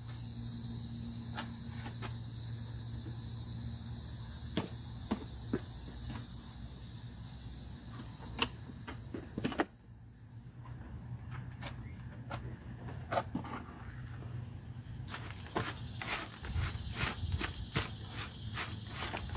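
Steady high-pitched chirring of insects such as crickets, with scattered sharp clicks and taps. The chirring cuts off abruptly about halfway through and comes back a few seconds before the end, when the clicks come thick and fast.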